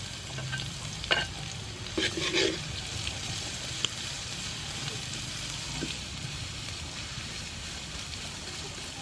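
Sliced lemongrass and kaffir lime leaves sizzling in hot oil in a steel wok, with a steady frying hiss. A metal spatula stirs them, scraping and clinking against the pan about a second in, a few times around two seconds, and once near four seconds.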